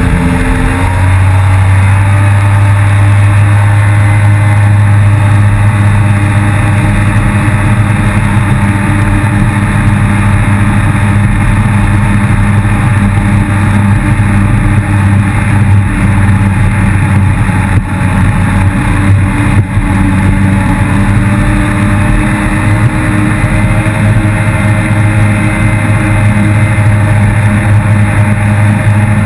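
Yamaha FX160 HO jet ski engine running steadily at speed, its note shifting and settling about a second in. Two brief knocks come about two-thirds of the way through.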